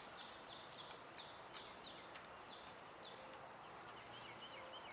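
Near-silent outdoor background with faint birds chirping: short high chirps repeated at intervals.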